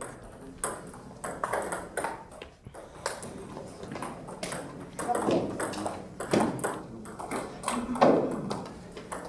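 Table tennis rally: the ball clicking back and forth off rackets and the table in a quick, uneven run of sharp hits.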